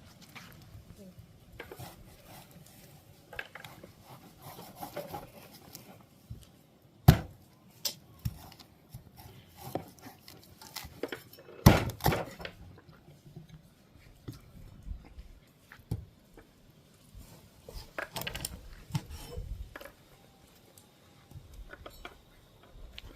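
Kitchen handling sounds: scattered clicks and clinks of a knife, bowls and dishes being worked, with two sharp loud knocks about seven and twelve seconds in.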